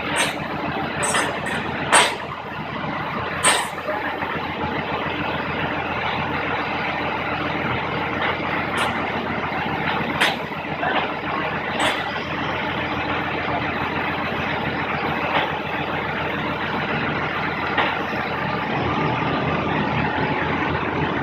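Steady vehicle running noise, with a few sharp clicks and knocks: about two, three and a half, ten and twelve seconds in.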